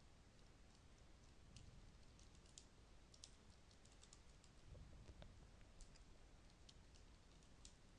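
Faint computer keyboard typing: irregular key clicks a few per second, in short runs with gaps, over a faint low hum.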